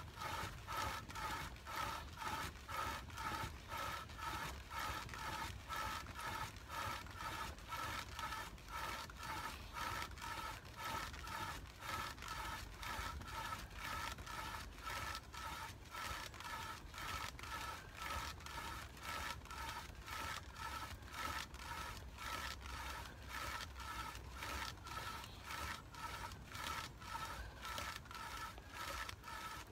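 Fire churn's large wooden spindle spun back and forth by a rope pulled alternately from each side, its tip grinding against the wooden hearth board to build friction heat: a rhythmic squeaky scrape, a little over two strokes a second.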